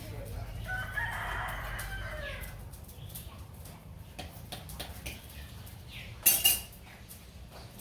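A rooster crows once, a call of about two seconds near the start, over a low steady rumble. A few sharp knocks follow, the loudest a quick double clack about six seconds in.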